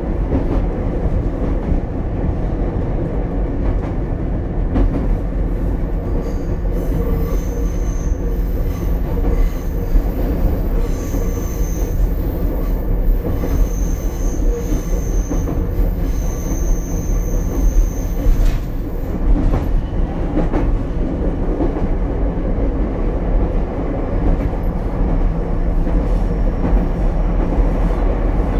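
Ichibata Electric Railway 7000-series railcar 7001 running between stations, heard from inside the car: a steady rumble of wheels and motors on the track. From about a quarter of the way in to about two-thirds through, a thin high wheel squeal comes and goes several times.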